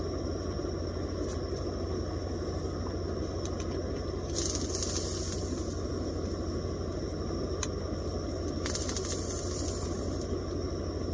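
Steady low rumbling background noise, with two short bursts of rustling about four and nine seconds in.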